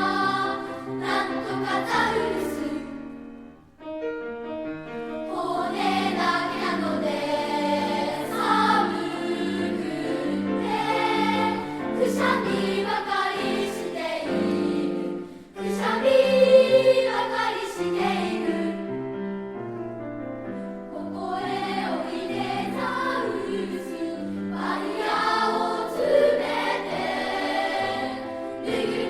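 Children's choir singing in parts with piano accompaniment, with a short break about four seconds in before the voices come back in.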